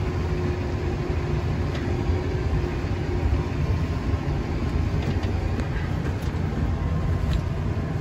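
Tractor engine running steadily, heard from inside the cab as it drives with a round bale on the front loader: a dense low rumble, with a few faint light clicks over it.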